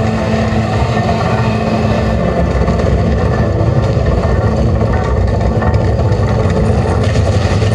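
A loud, steady low drone with no pauses or distinct strikes, from the projection show's sound system.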